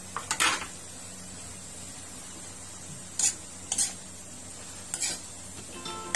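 Metal spatula scraping and clattering against a metal wok as a saucy vegetable stir-fry is turned, in four short strokes: about half a second in, twice around three to four seconds, and once near five seconds. A low sizzle from the pan runs underneath.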